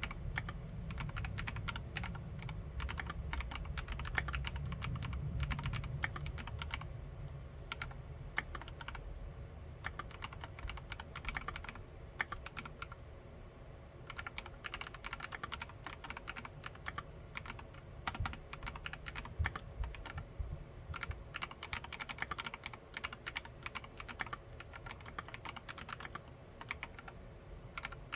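Continuous typing on a mechanical keyboard: a dense, irregular run of keystroke clacks. The first few seconds have a deeper, heavier thock, and the strokes are lighter after that.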